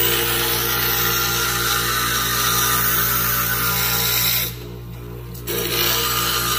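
Inland Craft Wizard IV glass grinder with a piece of glass pressed against its spinning bit, a steady rasping grind over the motor's hum. About four and a half seconds in the glass comes off the bit for about a second, leaving only the motor hum, then the grinding starts again.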